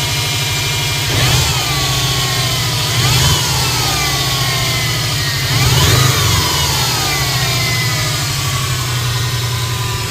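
Subaru Impreza WRX's turbocharged flat-four engine idling and revved briefly three times; each rev brings a high whine that rises with the revs and then slowly falls away over a couple of seconds. The owner hears this whining from the engine bay and does not know its cause.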